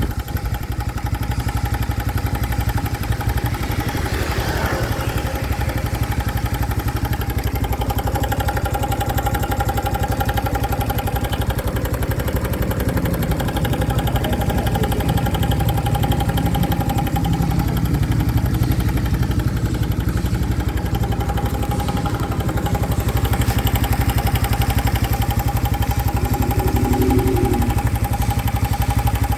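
Single-cylinder four-stroke engine of a 2025 Honda Biz motorcycle running steadily, carrying a new engine noise that the owner takes for a fault.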